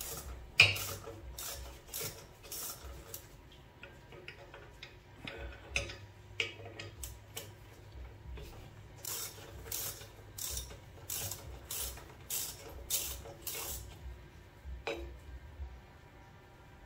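Hand tools clinking and scraping on the metal parts of a rusty rear drum brake assembly as it is taken apart. There is one sharp clank about half a second in, then scattered knocks, and in the second half a run of about ten evenly spaced clicks, roughly two a second.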